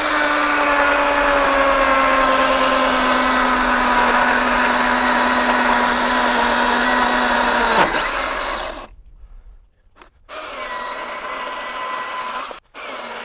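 Milwaukee M18 FUEL 2727 brushless cordless chainsaw running under load as the bar tip plunges into a wet oak log, its pitch sinking slowly as the cut loads the motor. About eight seconds in the motor winds down and stops. After a second it runs again, quieter and steady, with a brief dropout near the end.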